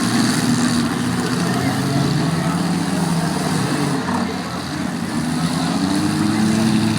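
Demolition derby car engines running together, their pitch rising and falling as they rev, with one climbing in pitch near the end.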